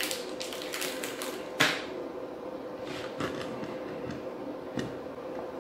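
Small plastic clicks and rustles of wire nuts and wires being handled, with one louder knock about a second and a half in and a few scattered clicks after.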